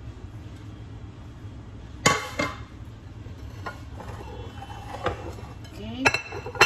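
Kitchen dishes and utensils clanking: a handful of sharp ringing knocks, a pair about two seconds in, single ones a little later, and a quick cluster near the end that is the loudest. A low steady hum runs underneath.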